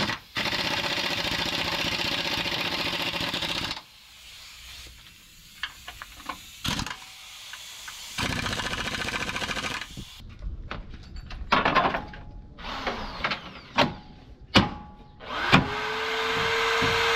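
Cordless drill running in two steady bursts of a few seconds each, driving bolts into a truck's front bumper bracket, with metal clicks and knocks between. Near the end a steady hum rises and holds.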